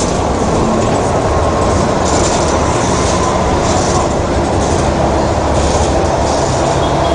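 Volvo B12M bus's 340 hp DH12 diesel engine, a 12-litre straight-six, running steadily with a dense, even rumble.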